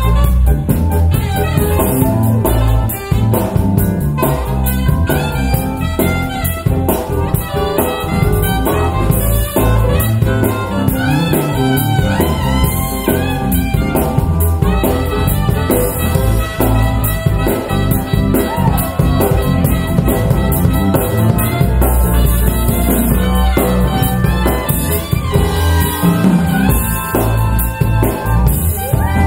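Instrumental music with drums and brass, played back through a pair of Paradigm Monitor SE Atom two-way, rear-ported bookshelf speakers as a listening demo.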